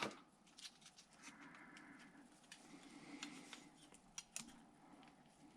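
Faint handling noises from a desktop CPU being handled out of its packaging: a few light plastic clicks, two close together near the end, over quiet rustling.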